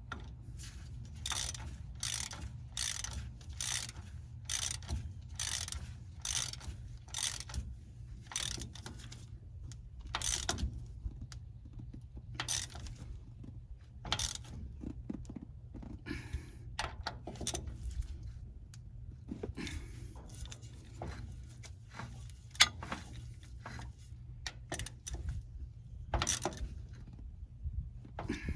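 Hand ratchet wrench clicking in repeated strokes, about one and a half a second at first, then more irregular. One sharp metallic knock about two-thirds of the way through is the loudest sound.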